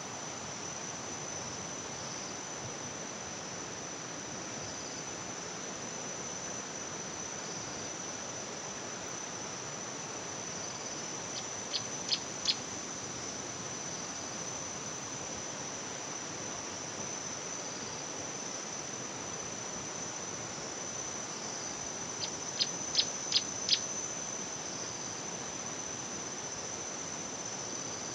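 Outdoor ambience: a steady high-pitched insect trill over an even hiss, broken twice by a short run of quick, sharp chirps, once about halfway through and again a few seconds before the end.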